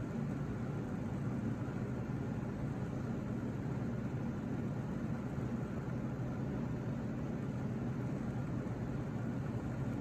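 A fan motor running steadily: a low hum under an even hiss.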